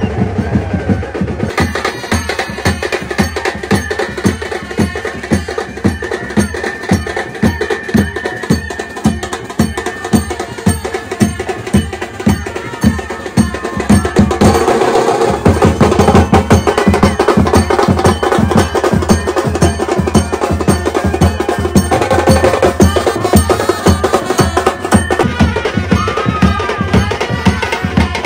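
Music driven by fast, steady drumming, with a held melody note over the first half; it gets louder about halfway through.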